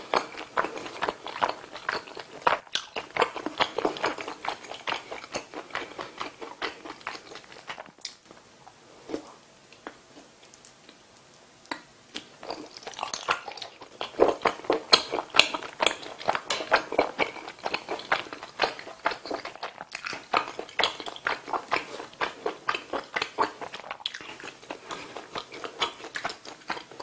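Close-miked chewing and biting of spicy tteokbokki skewers in sauce, with rapid wet mouth clicks. The chewing goes quiet for a few seconds about a third of the way through, then picks up again.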